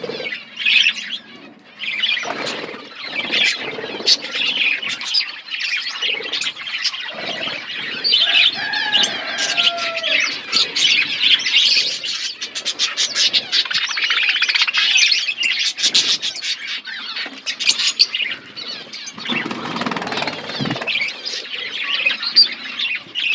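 A flock of budgerigars chattering: many short, overlapping chirps and squawks in a constant busy chorus.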